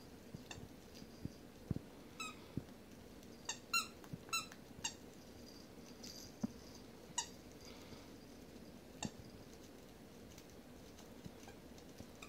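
Puppies tussling over plush toys: short, high squeaks come in scattered bursts, most thickly around four seconds in, with a few soft thumps of the play.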